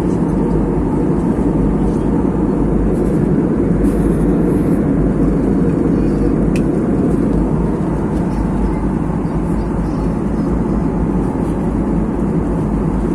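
Jet airliner cabin noise in cruise flight: a steady, low rush of engine and airflow noise heard from a window seat.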